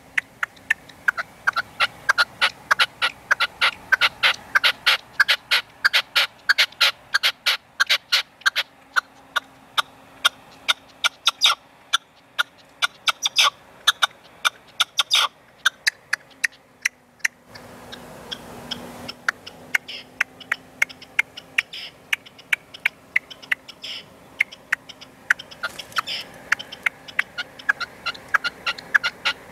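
Red-legged partridge decoy calling from its cage: a long run of short, sharp clicking notes, several a second, with a short rush of noise about two thirds through.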